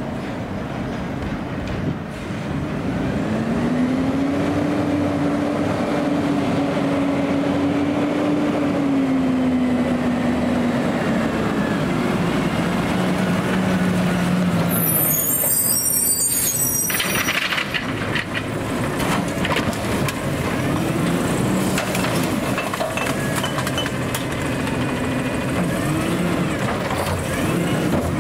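McNeilus AutoReach automated side-loader garbage truck driving: its engine drone rises, holds and then falls away, a sharp air-brake hiss about halfway through, then rattles and knocks with a wavering engine note as it pulls up to a cart.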